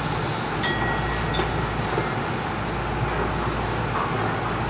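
Steady hum and rumble inside the cab of an Astram Line rubber-tyred guideway train, with a brief high tone about a second in.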